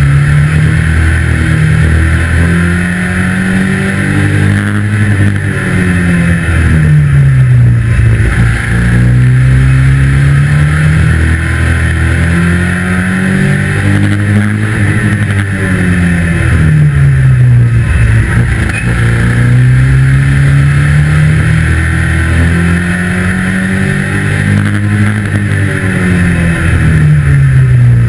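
A 2-litre saloon stockcar's engine heard loud from inside the cockpit while racing, its pitch climbing on each straight and dropping as the driver lifts for each corner, the cycle repeating every five to seven seconds.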